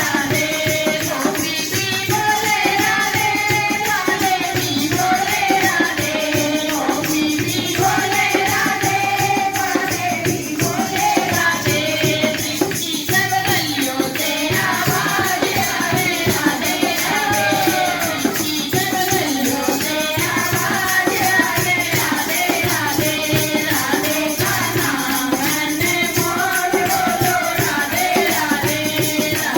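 Devotional bhajan: a singing voice over a fast, steady shaken-rattle and tambourine-like percussion beat.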